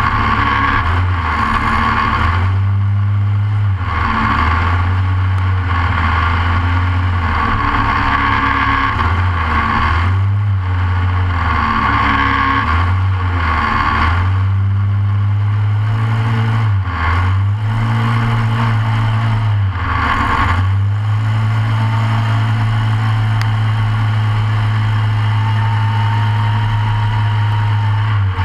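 Short course off-road kart's Briggs & Stratton engine heard from onboard, running hard under racing throttle. Its note rises and falls roughly every two seconds for the first twenty seconds or so, then holds steadier toward the end.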